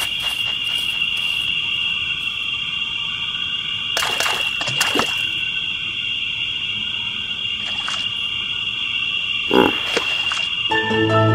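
Pond sound effects: a steady high insect trill, like crickets, with a few short frog croaks scattered through it. Music starts right at the end.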